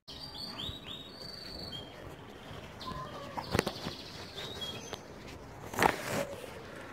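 Birds chirping in short high calls over steady outdoor background noise, with knocks of a handheld phone being handled, the loudest a thump about six seconds in.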